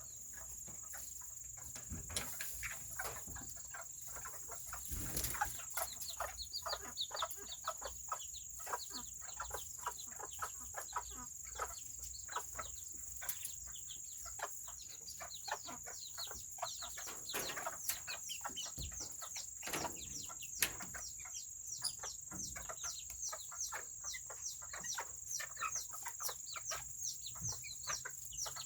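Serama chickens peeping and clucking: a run of short, falling peeps, several a second, that grows denser about six seconds in, over a steady high whine.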